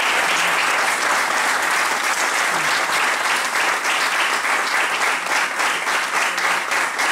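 Audience applauding steadily, the even clatter of many hands clapping.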